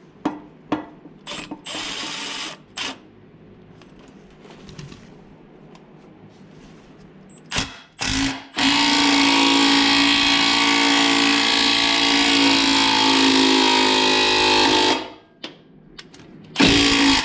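Impact wrench turning the screw of a ball joint press to push a U-joint cap out of a driveshaft yoke. It runs steadily for about six seconds in the middle, after a few short bursts and clicks, with another short burst near the end.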